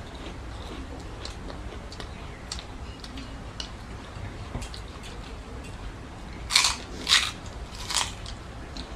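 People eating rice and curry by hand: close chewing with small wet mouth clicks, and three louder sharp smacks or crunches between about six and a half and eight seconds in.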